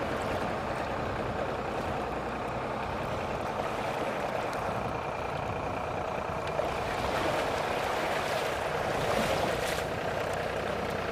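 A towing vehicle's engine running steadily as it drags a small cabin boat by a bow rope clear of the water's edge, a little louder from about two-thirds in, with shallow water washing around the hull.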